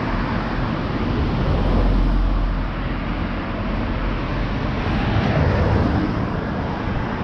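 Road traffic passing: a steady rush of tyres and engines with a low rumble.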